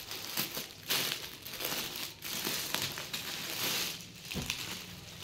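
Cloth rustling and crinkling in several short bursts as a folded cotton suit is handled and spread out, with a soft thump about four seconds in.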